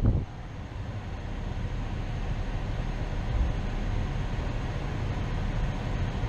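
Steady low rumble of a pickup truck's engine and drivetrain, heard from inside the cab as the truck creeps forward at low speed.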